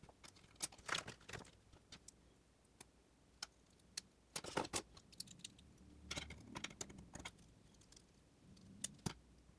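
Small plastic building bricks clicking and tapping as they are handled and pressed together, a scatter of short sharp clicks with a denser cluster about four and a half seconds in.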